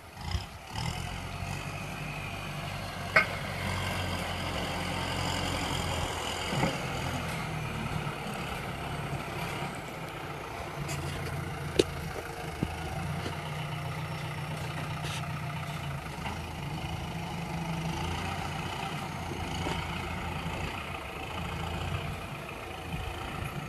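Kubota M6040 tractor's four-cylinder diesel engine running steadily as it pushes loose soil with its front dozer blade. Two sharp knocks stand out, one a few seconds in and one about halfway through.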